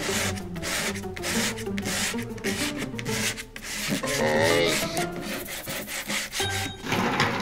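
Sandpaper rubbed back and forth by hand over the varnished wooden top of a Korean tray table (soban), in repeated scrubbing strokes that strip the varnish off.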